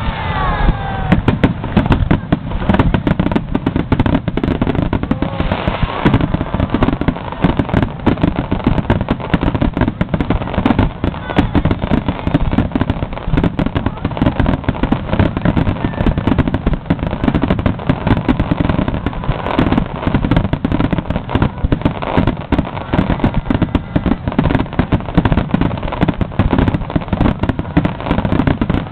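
Aerial fireworks going off in a dense, continuous barrage of bangs and crackling bursts, many every second, as in a fireworks finale. A few whistling streaks come near the start.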